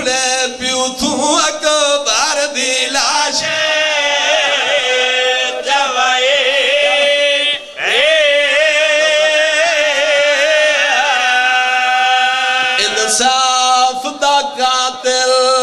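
A man's voice chanting a mourning recitation in long, wavering held notes with ornamented turns, amplified through a microphone. The chanting breaks briefly about eight seconds in, then a new held phrase begins.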